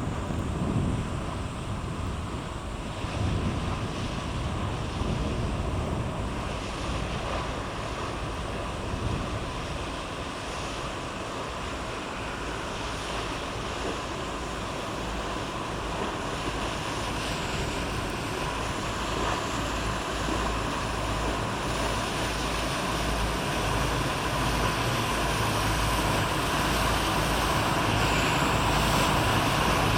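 A Japan Coast Guard patrol boat running past, its engines rumbling under the wash of water, growing steadily louder, with wind buffeting the microphone.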